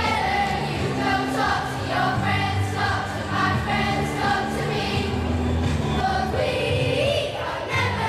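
A group of children singing together over a pop backing track with a steady bass line.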